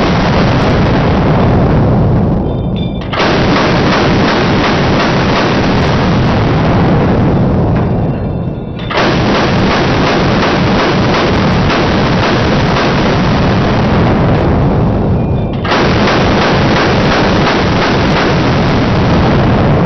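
M60 machine gun firing long full-auto bursts, played back slowed down for slow motion. The shots run together into a deep continuous stream. It breaks off briefly three times, about 3, 9 and 15 seconds in, each time fading out before the next burst cuts in.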